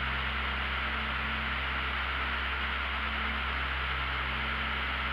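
Steady drone of a light aircraft's engine and propeller heard from inside the cockpit: an even rushing noise over a low, constant hum, unchanging in power during cruise climb.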